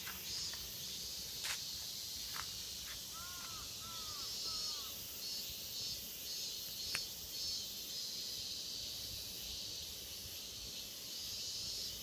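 Insects trilling in a steady, evenly pulsing chorus. A bird gives three short, arching calls a little after three seconds in, and there are two sharp clicks, one at about one and a half seconds and one near seven seconds.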